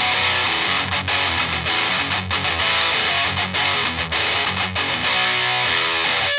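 Electric guitar (Epiphone Dot 335 with a Seymour Duncan JB bridge pickup) distorted by a ProCo Rat pedal into a Fender Deluxe Reverb amp, playing a heavy metal riff of low notes with brief stops. It moves to held, ringing notes about five seconds in.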